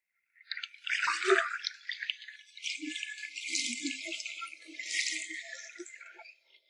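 Shallow seawater splashing and swishing as a bamboo-framed push net is shoved through it by a wader, with a sharper splash about a second in.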